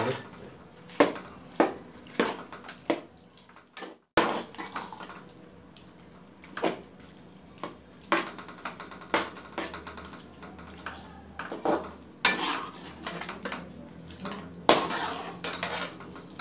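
A perforated metal ladle stirs a wet spinach mixture in a metal karahi. It scrapes and knocks against the side of the pan at irregular intervals, about once a second, with a brief dropout about four seconds in.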